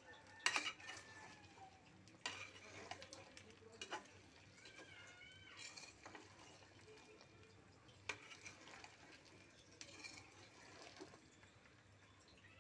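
A metal spatula stirs whole red chilies and garlic cloves coated in oil in a pot, with scattered scrapes and clinks against the pot a second or two apart.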